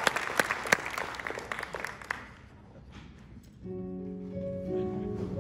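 Audience applause tapering off over the first two seconds. After a brief lull, about three and a half seconds in, an instrumental music intro of sustained, held chords begins.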